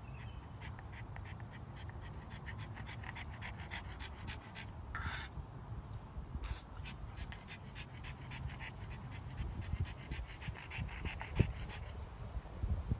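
A pug panting fast, several short breaths a second.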